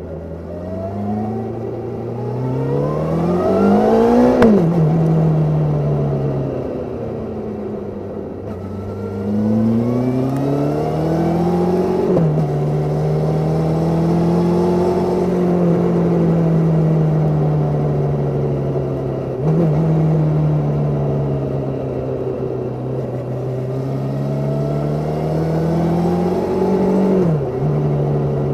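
Suzuki Katana 750's inline-four engine pulling under acceleration, heard from under the seat. Its pitch climbs steeply and drops sharply at a gear change about four seconds in and again near twelve seconds. After that it holds a steadier pace with slow rises and falls and brief dips at further shifts.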